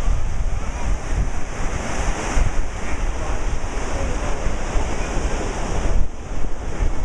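Wind buffeting the microphone in gusts over the steady wash of small surf breaking on the shore, with faint chatter of people.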